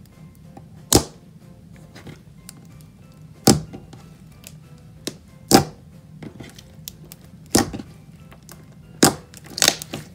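Thick clear slime being pressed and folded by hand, giving six sharp bubble pops about every two seconds, the last two in quick succession near the end.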